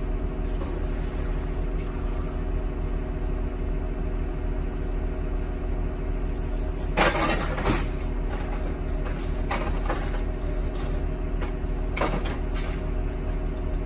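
A heavy engine idling steadily, with a few sharp metal clanks of load chains being thrown over bundled crushed cars, the loudest about halfway through.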